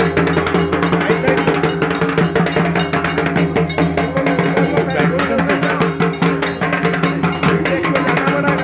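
Dhak, the large Bengali barrel drum, beaten with thin sticks in a fast, continuous rhythm of dense strokes over a steady ringing drone.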